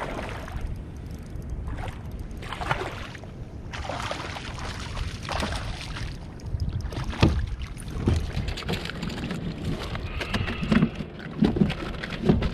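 A hooked speckled trout splashing and thrashing at the surface beside a kayak as it is reeled in, in repeated short splashy surges, over wind rumble on the microphone. A few sharp knocks come about seven to eight seconds in.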